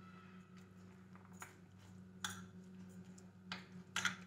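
A metal spoon stirring a thick curd and ground-coconut mixture in a glass bowl: faint scraping with a few soft clinks of the spoon against the glass, the clearest about two seconds in and near the end. A steady low hum runs underneath.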